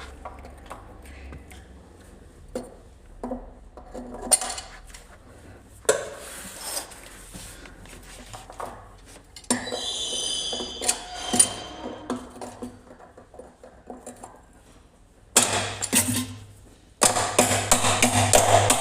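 Scattered clinks and knocks of metal tools and fittings being handled. About ten seconds in there is a short high metallic squeal, and near the end a dense, rapid clatter.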